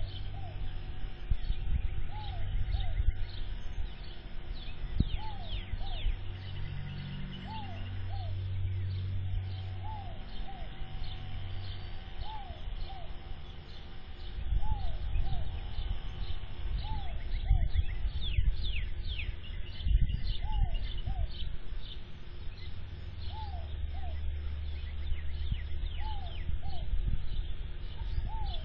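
Birds calling: a two-note call of short arching chirps repeats every few seconds, with quicker high chirps above it, over a steady low rumble.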